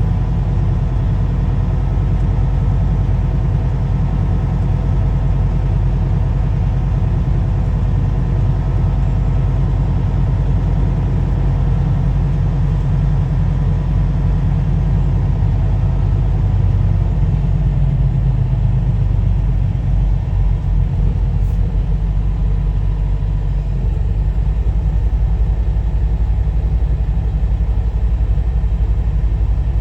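Car driving, with a steady low rumble of engine and road noise that eases slightly for a few seconds about two-thirds of the way through.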